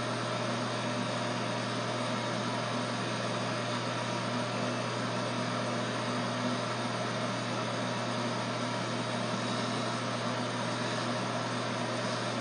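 Corded electric hair clippers running with a steady low buzz as they cut short hair on the head.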